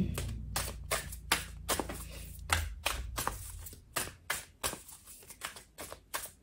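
A Star Codes Astro Oracle card deck being overhand-shuffled by hand: a quick run of short card snaps, about four a second, getting quieter toward the end.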